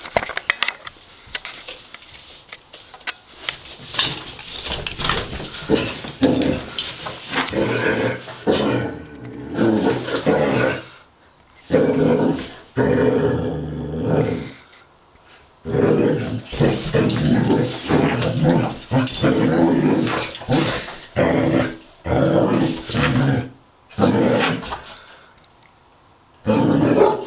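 Basset hound play-growling in repeated bouts of a second or two, with short pauses between them.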